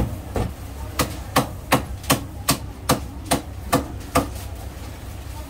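Cleaver chopping roast duck on a thick round wooden chopping block: a run of about eleven sharp, evenly spaced strikes, roughly two and a half a second, stopping a little after four seconds in.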